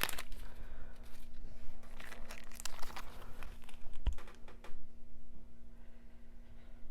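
Packaging crinkling and crackling as it is handled close to a sensitive microphone, with sharp crackles and clicks that die down about four and a half seconds in.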